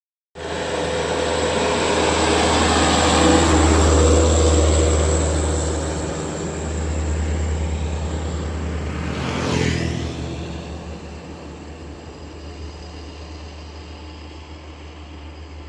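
Heavy diesel bus engine labouring uphill as it climbs toward and past, with a deep steady rumble. The engine builds to its loudest about four seconds in. A falling whoosh sounds as the bus goes by close about ten seconds in, then the engine fades away.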